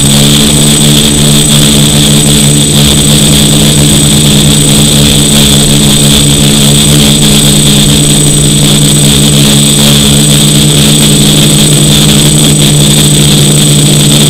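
DJI F450 quadcopter's electric motors and propellers in flight, picked up right beside the props by a camera fixed to the frame. It is a loud, steady buzzing hum with a high whine above it.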